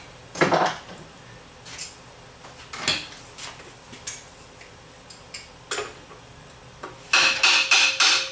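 Metal parts and tools of a TH400 transmission teardown clinking and knocking: scattered single knocks, then a quick run of ringing metallic taps near the end.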